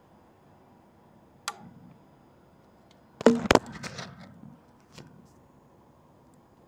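Handling noises as cat food is set down on concrete: a single sharp click, then about a second of loud rustling clicks and knocks, and one more click near the end.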